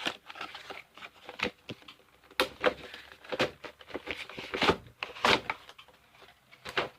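Cardboard and plastic toy packaging being pulled open by hand: irregular crinkles, rips and sharp clicks.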